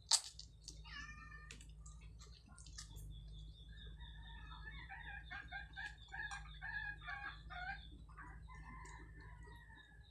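A rooster crowing, one long call around the middle, with shorter chicken calls before and after it. A sharp click right at the start is the loudest sound.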